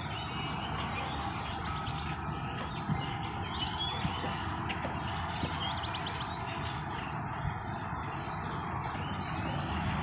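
Small birds chirping over and over against a steady low rumble of background noise.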